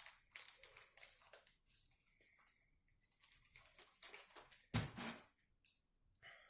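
Faint clicks and light taps of small screws and metal parts being handled while a DVD drive is fitted into a PC case's drive bay, with one louder knock about five seconds in.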